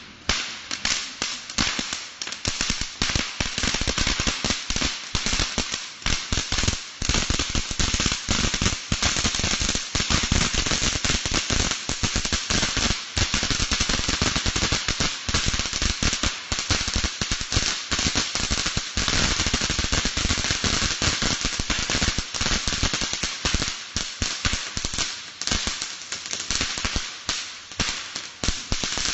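Handheld crackling firework spraying sparks: a dense, fast crackle of countless small pops, steady and loud.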